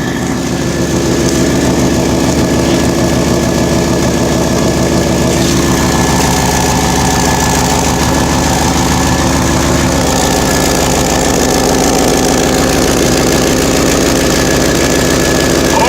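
Vehicle engine idling steadily with an exhaust leak at a rotted-away exhaust flange.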